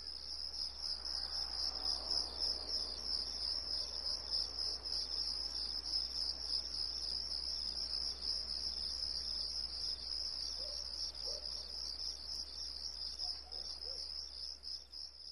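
Crickets chirping in a steady, rapidly pulsing high-pitched chorus that fades out near the end.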